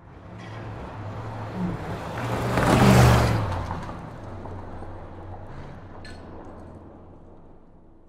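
A car speeding past on a highway: the rush of tyres and engine builds to a peak about three seconds in, then fades away as it goes off into the distance.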